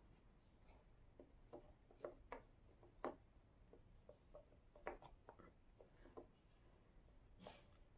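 Faint rustles and light taps of fingers handling paper: black paper antenna strips being pressed against the inside of a paper roll. A few small ticks stand out, the sharpest about three seconds in and just before five seconds.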